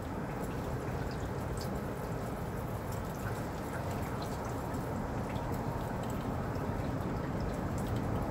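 Steady low rumble of an Airbus A380's four turbofan engines on final approach, growing slightly louder as it comes in. Faint scattered clicks sound over it.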